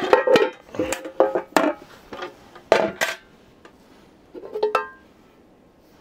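Large aluminium French army mess tins and their lids clanking together as they are lifted and set down, each knock ringing briefly: about eight knocks over the first five seconds, the last ringing on a little longer.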